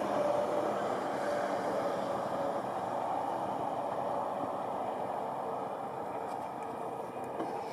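Distant rumble of an Atlas V rocket's RD-180 first-stage engine, a steady noisy rumble that slowly fades.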